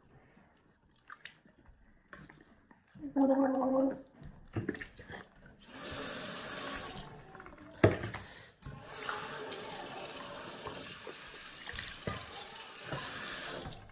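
A brief pitched hum about three seconds in, then tap water running into a sink in stretches, broken by a sharp knock about eight seconds in.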